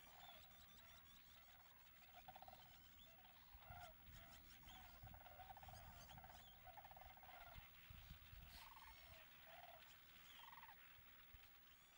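A flock of sandhill cranes giving their rolling, rattling calls over and over, many birds overlapping, with fainter high chatter of a blackbird flock above them.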